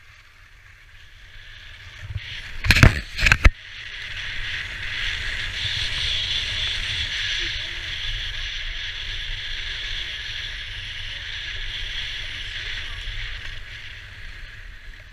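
Skis sliding down a groomed snow trail with a steady hiss, under a low wind rumble on the camera's microphone. A few loud knocks or buffets about three seconds in.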